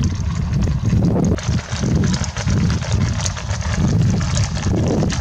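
Wind buffeting the microphone in a loud, uneven rumble, over the clatter of many horses' hooves on an asphalt road.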